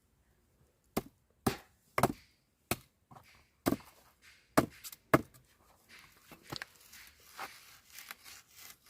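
A series of sharp chopping knocks, about seven strokes at uneven intervals, followed by lighter clicks and rustling.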